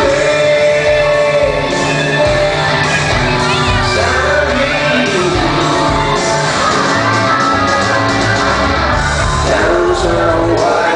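A rock band playing a song live with a male lead singer holding long, wavering notes over full band backing, during a stage sound check.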